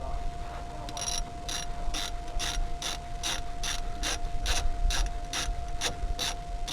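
Hand socket ratchet wrench clicking as it does up the lower bolt of a van's rear brake assembly, in over a dozen even swings of about two and a half a second, starting about a second in. A faint steady whine sits under it.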